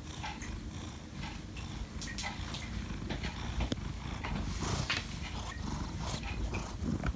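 Ginger tabby cat purring steadily close to the microphone, a continuous low rumble, with light rustling and clicks of the phone being moved near it.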